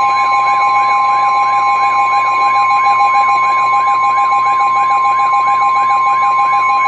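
NOAA Weather Radio warning alarm tone: a loud, single steady tone of about 1050 Hz, broadcast ahead of a flood warning. A fainter warbling tone wavers underneath, about two and a half times a second.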